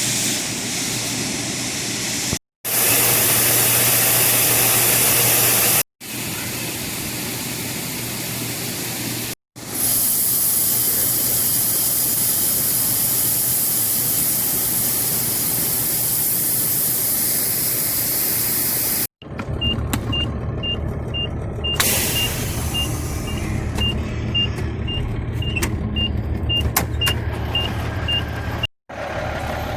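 Several short clips of farm machinery. First comes a steady, loud rushing hiss, then a heavy diesel engine running with its backup alarm beeping about twice a second.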